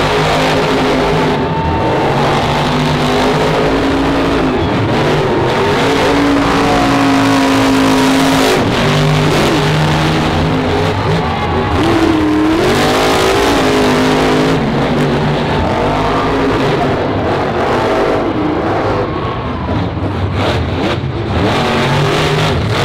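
Max-D and Megalodon monster trucks' supercharged V8 engines racing, revving up and down over and over, loud throughout.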